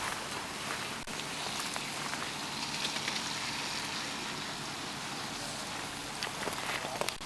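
Steady hiss of rain falling, with a few faint ticks near the end.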